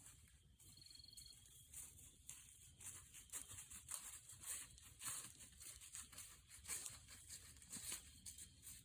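Faint, irregular rustling and crackling, several quick rustles a second, growing busier about two seconds in.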